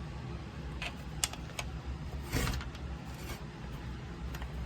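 A few small clicks and taps with a brief scrape about halfway through, from screws being fitted back into the plastic handle cover of a Makita circular saw, over a steady low hum.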